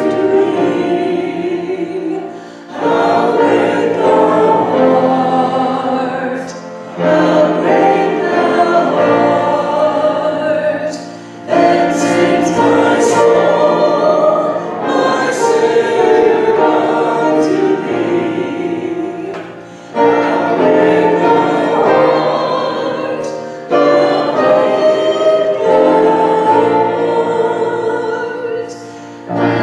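A hymn sung by a woman into a handheld microphone, with a man singing beside her, in phrases of about four seconds broken by short breath pauses.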